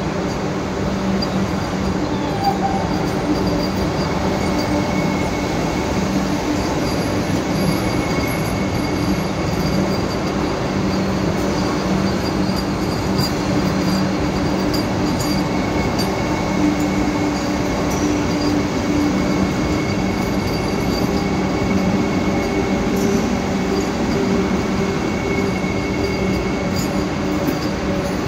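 Vande Bharat Express electric multiple-unit train rolling slowly alongside a station platform: a steady running noise with a low hum and a thin, higher whine.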